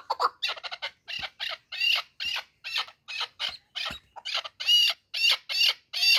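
Chukar partridge calling: a quick run of short clucks at first, then a steady series of loud chuck notes, about two to three a second, loudest a little before the five-second mark.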